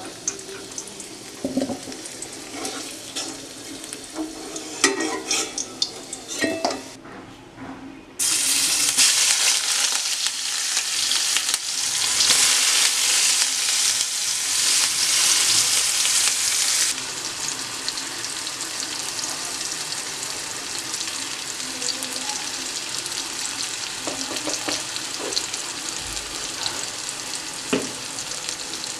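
Food frying in hot oil in a cooking pan, with a utensil scraping and clicking against the pan as it is stirred. About eight seconds in, a loud sizzle starts suddenly, then eases after about another nine seconds into a steady, quieter frying hiss.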